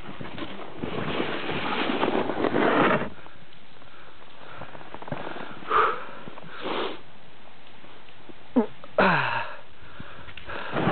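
Wind buffeting the camera's microphone for about three seconds, then quieter, with a few short breathy sounds close to the microphone around six, seven and nine seconds in.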